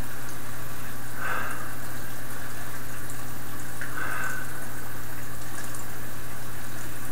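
Steady hiss with a low electrical hum, and faint sniffs at a glass of stout about a second in and again about four seconds in.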